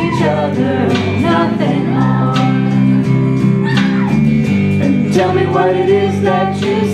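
A live band playing a song, with guitar strumming and a woman singing lead into a microphone, the standing congregation singing along.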